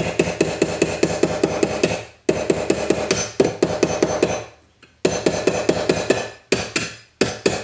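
Ball-peen hammer tapping rapidly on the edge of a reticulation-silver cuff resting on a steel bench block, about seven light ringing blows a second. The blows come in runs of about two seconds with short pauses between. The hammering is peening down and widening out the cuff's edge.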